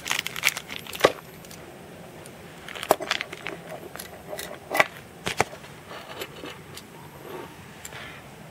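Scattered sharp clicks and light clinks of a metal-and-plastic Beyblade spinning top being gripped, turned and handled by hand.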